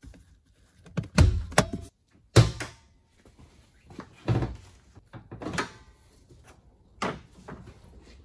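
A string of separate clunks and clicks from the bonnet of a Mazda 6 being released and opened: the interior release lever pulled, the bonnet latch and safety catch letting go and the bonnet lifted. The loudest clunks come about one and two and a half seconds in.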